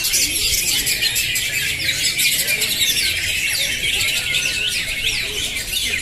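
Many caged green leafbirds (cucak hijau) singing at once in a contest round: a dense, unbroken chorus of quick overlapping whistles, chirps and trills.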